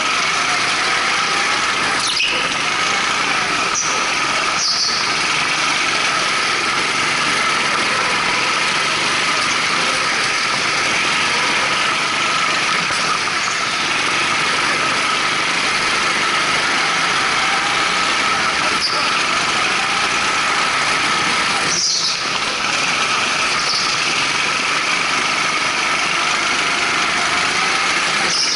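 Go-kart with twin Honda GX200 single-cylinder four-stroke engines running hard, a steady high-pitched drone. Brief tyre squeals come through several times as it corners.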